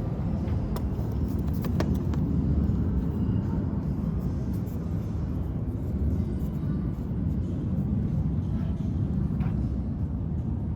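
Vertical band saw running with a steady low hum, with a couple of faint clicks about a second in.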